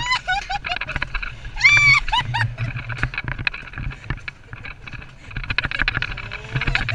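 Alpine coaster sled running down its metal rail with a steady rumble and constant rattling clicks. The riders let out high-pitched shrieks and laughter at the start and again about two seconds in.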